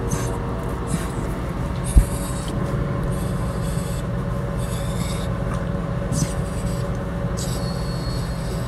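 A small dog in labour breathing heavily: rasping breaths about once a second over a steady low hum.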